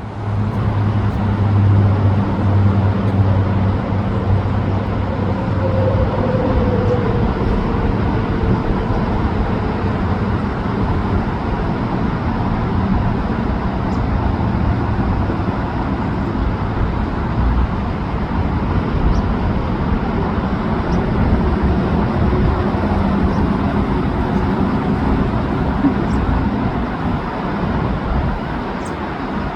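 Steady low rumble throughout, with a hum in the first several seconds.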